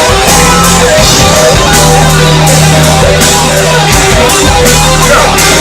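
A live rock band playing loudly: electric guitar, bass and a drum kit keeping a steady beat.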